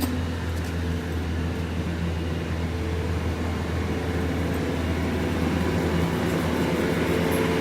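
Engine of heavy work machinery running steadily at idle, a low hum that grows slightly louder toward the end.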